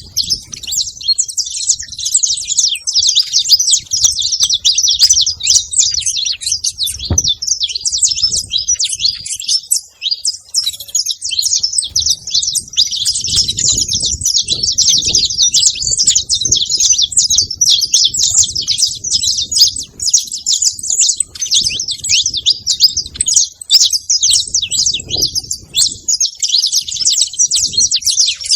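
Saffron finches chirping and chattering continuously, many high, quick calls overlapping, with a low rumble underneath at times.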